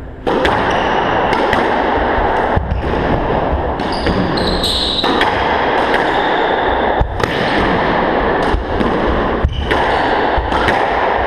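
Squash rally: the ball cracks sharply off rackets and the court walls about once a second, ringing in the enclosed court over a steady noisy background. A high sneaker squeak on the wooden floor near the middle.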